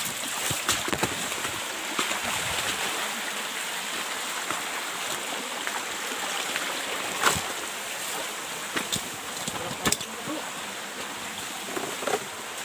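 Water of a small muddy stream running over rocks: a steady rushing, broken by a few sharp knocks, the loudest about seven seconds in.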